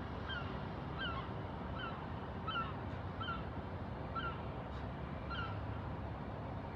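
A bird giving short, honk-like calls over and over, about one every three-quarters of a second, over the steady low rumble of a train in the distance.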